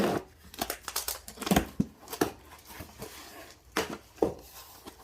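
Packaging being opened by hand: irregular crinkling and rustling with sharp handling clicks and knocks.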